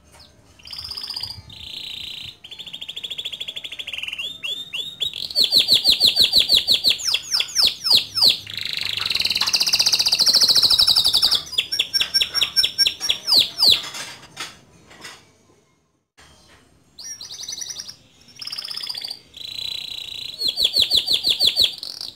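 Male domestic canary singing a long song of fast rolling trills and rapidly repeated chirps, with a brief pause about two-thirds of the way through before the song resumes.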